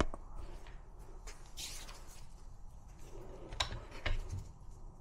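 Faint handling sounds of a small clamp being picked up and set in place: a brief scrape about a second and a half in, then a couple of light clicks near the end.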